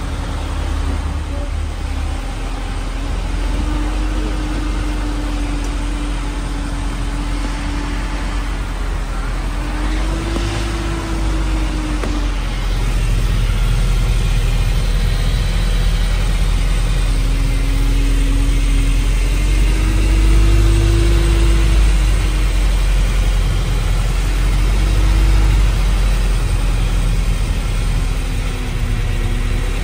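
Vehicle engine heard from inside the cab while driving slowly, a steady low drone whose pitch rises and falls a little with the revs.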